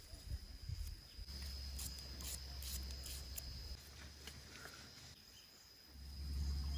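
Outdoor rural ambience: a steady high insect drone, a low rumble that comes and goes, and a few short sharp clicks in the middle.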